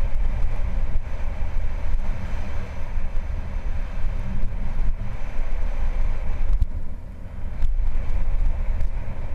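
Wind rumbling on a helmet-mounted camera's microphone and mountain-bike tyres rolling over a dry dirt and gravel trail during a downhill descent. A few sharp knocks from the bike over bumps come in the second half, and the noise drops briefly about seven seconds in.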